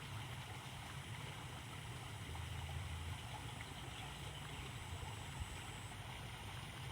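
Steady low rumble with a faint even hiss of outdoor background noise; no distinct event stands out.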